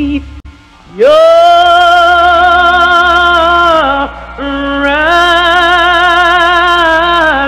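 Background music: a melody of long held notes with vibrato over a steady low drone. The first note swoops up about a second in after a short pause, and a second long note follows just after the middle.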